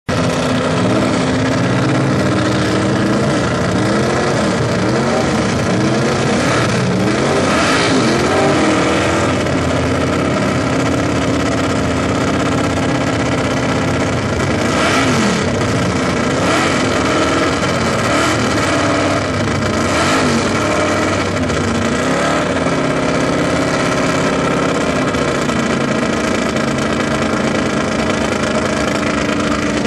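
Competition drag car's V8 running through open headers: a loud steady idle broken by repeated throttle blips, each rising and falling in pitch.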